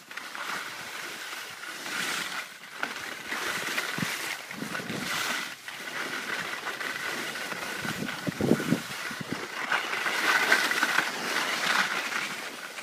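Skis hissing and scraping over snow, the sound swelling and fading every second or two.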